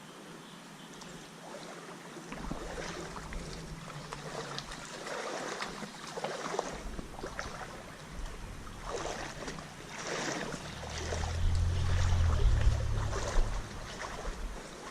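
Creek water sloshing and splashing in irregular bursts as someone wades through it, with a low rumble on the microphone a little past the middle that is the loudest part.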